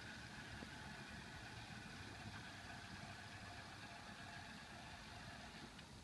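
Faint steady whine of a powered wheelchair's electric drive motors as the chair is driven by remote control. A lower tone joins about halfway through, and the whine cuts off suddenly just before the end as the chair stops.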